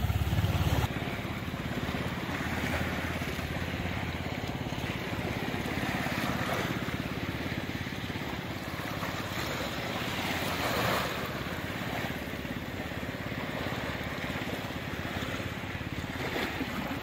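Small waves washing in over a pebbly beach, swelling now and then, with wind buffeting the microphone.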